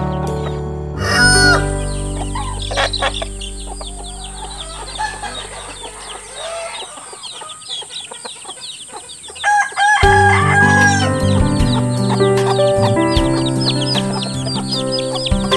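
Village chickens clucking, with a rooster crowing about ten seconds in and high peeping that fits chicks, over background music.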